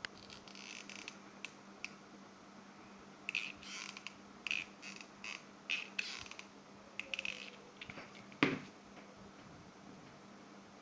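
Stiff quilling-paper ring panels handled and pressed together on a tabletop: a run of short crackling clicks and rustles, with one louder knock about eight and a half seconds in, over a faint steady hum.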